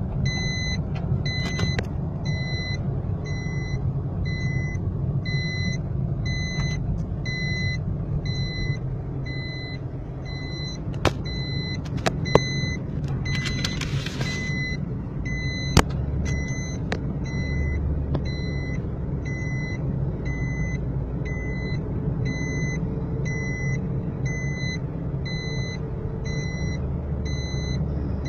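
Steady low rumble of a car driving, heard from inside the cabin, with the car's electronic warning chime beeping about once a second over and over. A few sharp clicks sound near the middle.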